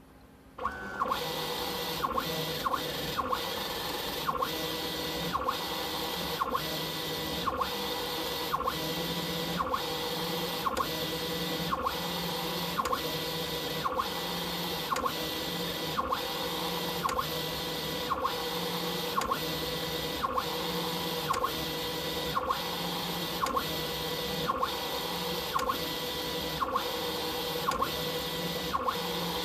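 Stepper-motor-driven gantry of a DIY CO2 laser cutter running its laser head back and forth at high feed rate. It starts under a second in with a steady electric whine and belt-and-carriage running noise, and a short sharp knock about once a second as the carriage reverses.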